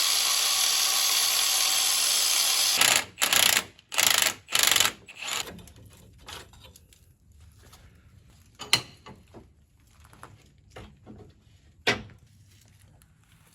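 Power tool running steadily for about three seconds, then four or five short bursts, followed by a few scattered clicks and knocks.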